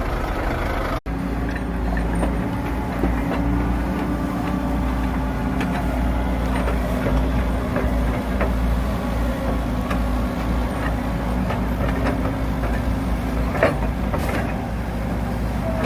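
Motor vehicle engine running with a steady low rumble. There is a brief cut in the sound about a second in.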